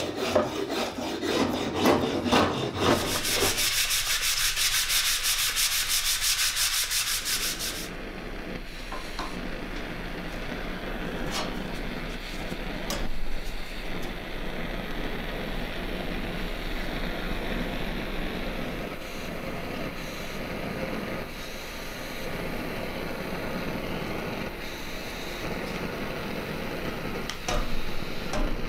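Hand-shaping a wooden axe handle: a few seconds of shaving strokes, then about five seconds of fast, even rasping. From about eight seconds in, a brass pressurised blowlamp burns with a steady rushing noise, with a few light clicks.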